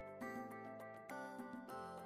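Quiet background music: a light tune with changing melody notes over ticking percussion.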